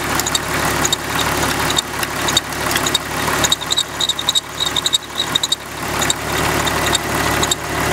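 Jeep Wrangler engine idling while its serpentine belt squeaks in repeated short high chirps, several a second. The owner traces the squeal to the power steering pump pulley, which squeals when lined up straight; he suspects it was pressed onto the pump not quite right.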